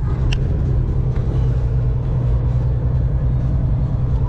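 Semi-truck engine running, heard from inside the cab: a steady low drone, with one short sharp tick about a third of a second in.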